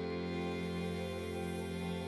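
Instrumental background music of sustained, held tones with no clear beat.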